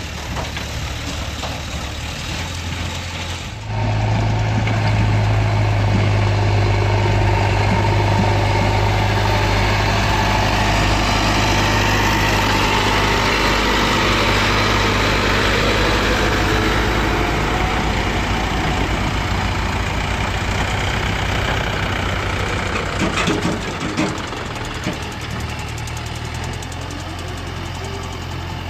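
Heavy diesel engine of a working machine running, stepping up to a higher, louder speed about four seconds in, then easing back toward idle later on, with a few knocks near the end.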